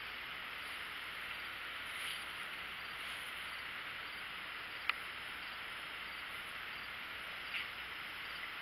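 Steady outdoor insect drone with faint regular chirps, and one sharp click about five seconds in.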